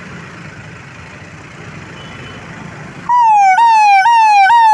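Low traffic rumble, then about three seconds in an ambulance's electronic siren starts suddenly and loud. Its tone glides down and snaps back up about twice a second.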